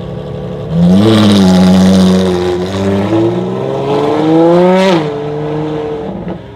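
Ferrari FXX K Evo's 6.3-litre V12 running low, then revving up sharply about a second in as the car pulls away. Its pitch climbs steadily before dropping sharply about five seconds in, then runs lower and fades as the car moves off.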